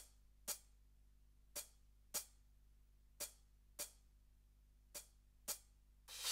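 Roland TD-17KVX electronic drum kit playing soft, short hi-hat ticks, eight in all, in pairs about half a second apart. A loud cymbal crash comes in at the very end.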